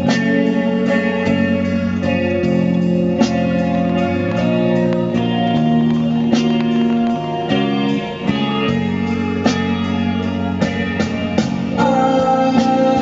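Instrumental passage of a song with no singing: guitars play sustained and plucked notes over a steady low accompaniment.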